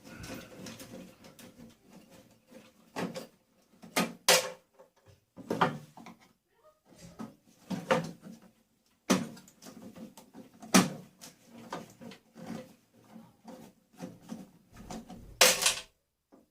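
Irregular knocks, clatters and scrapes of metal and plastic appliance parts being handled and pried apart by hand while the appliance is stripped for scrap, with the sharpest knocks about four, eight, eleven and fifteen seconds in.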